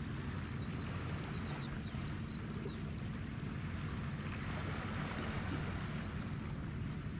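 Low steady rumble of the naval oil tanker YOT-01 under way, mixed with wind buffeting the microphone. A run of short high chirps comes in the first three seconds and again about six seconds in.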